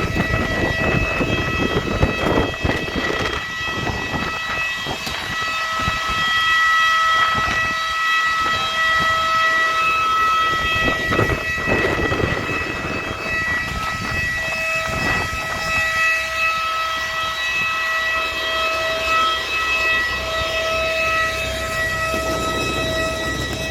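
Airbus A320 cabin noise: a steady, high multi-toned whine over rumble, with the rumble easing about two-thirds of the way through.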